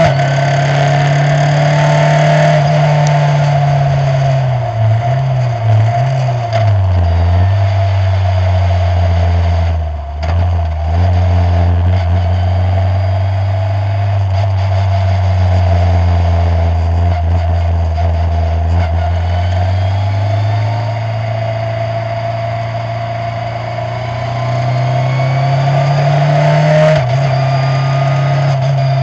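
A Skip Barber formula race car's engine, heard onboard at racing pace. Its note falls with a few quick blips about five to seven seconds in as the car slows for a corner, stays low through the slow section, then climbs under acceleration and drops sharply at an upshift near the end, over a steady higher whine.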